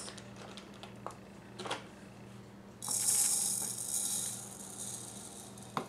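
Dry brown rice rattling in a metal measuring cup, then poured into the Baby Bullet's short plastic cup from about three seconds in: a steady hiss of falling grains that fades out near the end.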